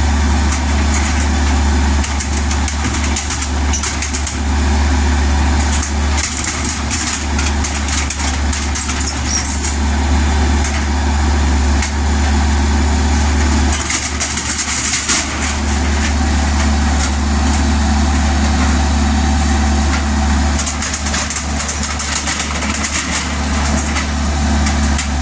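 Kubota U50 mini excavator's diesel engine running steadily with a deep, even hum, dipping briefly about 14 seconds in, with short clattery stretches at times.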